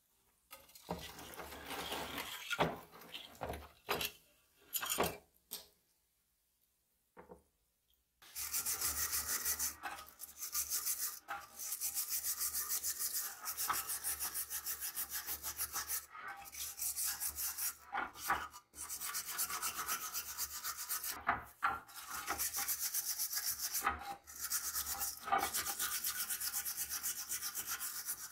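Steel wire hand brush scrubbing a rusty steel axe head under water with rapid back-and-forth strokes. A few scattered scrapes and a short quiet spell come first, then steady, continuous scrubbing from about eight seconds in.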